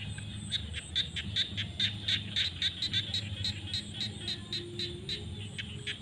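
Frogs calling in a flooded field: a rapid run of short, sharp, high calls, about five a second, loudest a second or two in and easing off near the end, over a steady low hum.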